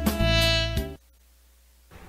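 Instrumental background music with sustained notes, which stops abruptly about halfway through, leaving near silence.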